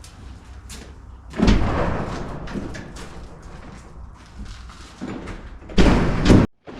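A loud thud about a second and a half in, then scattered knocks and clatter, and two loud bangs near the end before the sound cuts off suddenly.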